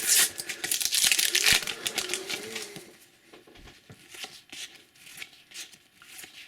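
Panini sticker pack wrapper being torn open and crinkled for about three seconds, then quieter soft clicks and rustles as the stickers are handled and flicked through.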